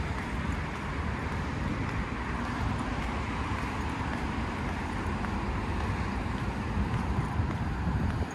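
Steady low rumble of wind on the phone's microphone while walking outdoors, with a faint wash of city traffic; the rumble drops away abruptly at the very end.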